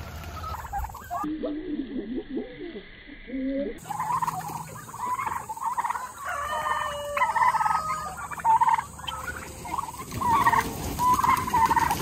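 A flock of domestic turkeys calling, many short calls overlapping, coming in about four seconds in.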